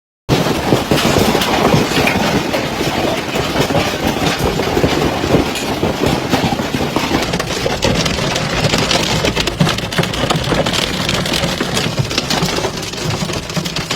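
Hailstorm: a dense, constant clatter of hailstones striking hard surfaces. It starts abruptly just after the beginning.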